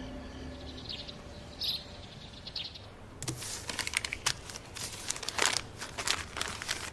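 A few faint bird chirps, then from about three seconds in, sheets of stiff wrapping paper rustling and crinkling in a rapid, uneven run as they are handled and folded on a table.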